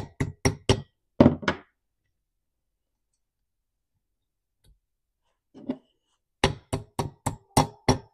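Brass hammer tapping small caps into a Stihl MS211 chainsaw's muffler: a quick run of about six sharp taps, a pause of a few seconds, then another run of about seven taps near the end.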